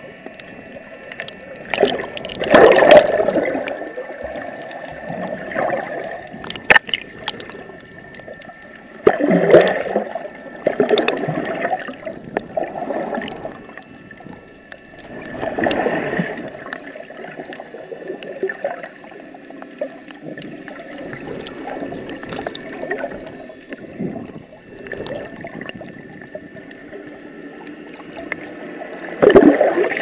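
Underwater sound picked up through an action camera's waterproof housing: muffled water movement that swells up several times, with scattered sharp clicks and a faint steady whine.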